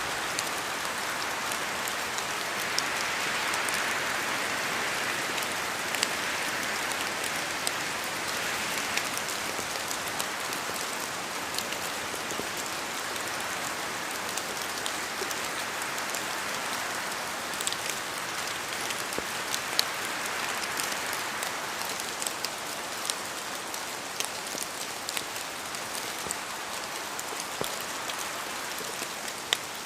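Steady rain in a forest, a continuous hiss that swells and eases gently, with many separate drops falling from the trees and ticking sharply on leaves and surfaces.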